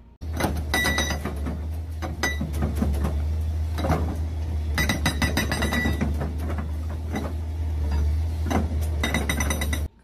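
Komatsu PC210 excavator's hydraulic rock breaker hammering stone in three bursts of rapid blows, over the steady low drone of its diesel engine.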